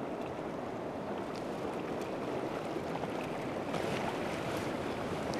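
Steady wash of sea water against a rocky shore, with a few faint ticks.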